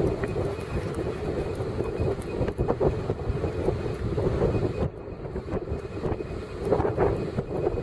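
Strong wind buffeting the microphone: a continuous, gusty rumble.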